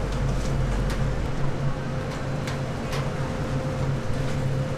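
Bak kwa pork slices sizzling on a wire grill over charcoal, with a few sharp crackles, over a steady low machine hum with a constant higher tone.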